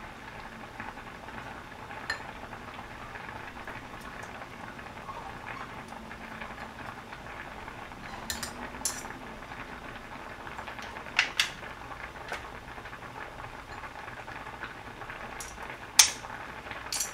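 Food bubbling steadily in the pot, with scattered sharp clinks of metal utensils against dishes and pans; the loudest clink comes about a second before the end.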